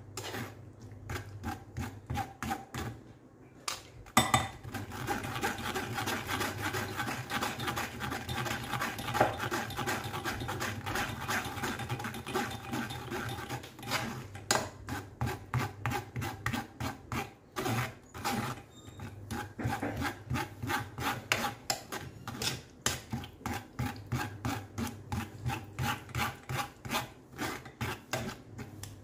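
A metal spoon scraping and pressing thick puree through a stainless-steel wire-mesh strainer: rhythmic rasping strokes, about two a second, with a short pause about three seconds in.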